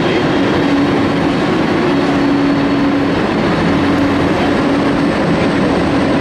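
Boeing 747 jet engines running at taxi power: a steady, even rumble with a faint hum that comes and goes.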